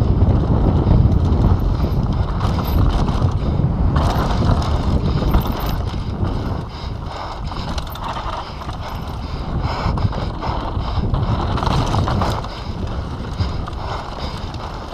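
Mountain bike descending a dirt and gravel trail at speed: tyres rumbling over the ground and a steady clatter of chain and bike parts, with wind on the microphone. It is loudest in the first half and eases a little later on.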